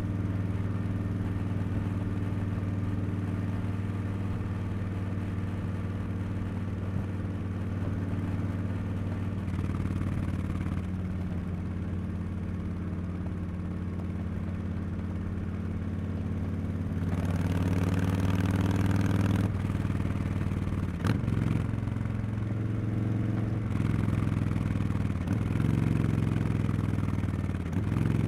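Harley-Davidson Street Bob 114's Milwaukee-Eight 114 V-twin running through Cobra Neighbor Hater slip-on mufflers while riding. It holds a steady cruise, gets louder and fuller about two-thirds of the way in, then dips briefly a few times near the end.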